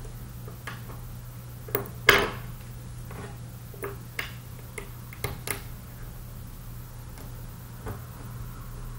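Scattered light clicks and clinks, the loudest about two seconds in, over a steady low hum.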